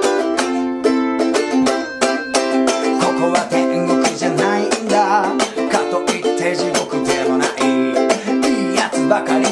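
Ukulele, a black G-Labo Black Beauty, strummed hard in a driving eight-beat rhythm. An interlude chord run leads into a verse on C and G7, and a man's singing voice joins a few seconds in.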